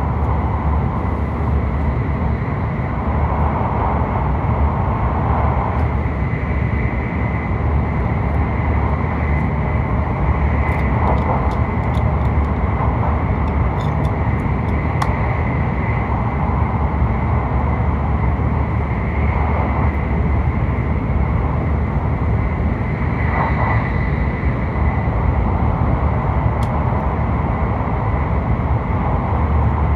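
Hokuriku Shinkansen train running at speed, heard inside the passenger cabin: a steady running noise heaviest in the low end, with a faint high steady tone.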